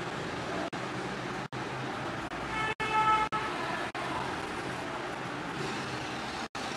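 Steady background road-traffic noise, broken by several brief dropouts, with a short car horn toot about two and a half seconds in.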